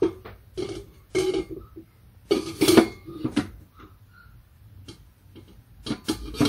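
Instant Pot Lux Mini pressure-cooker lid knocking and clattering against the rim of the pot as it is set in place and lined up for closing, a series of irregular short knocks.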